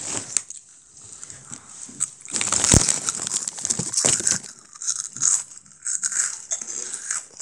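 Crunchy Jagalchi snack pieces being chewed close to the microphone: irregular crunching and crackling, loudest a little over two seconds in.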